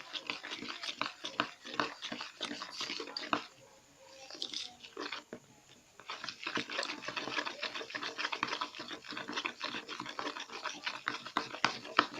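Spoon stirring white glue and Tenys Pé into slime in a container: a run of quick sticky clicks and scrapes, with a lull of about two seconds a little past the middle.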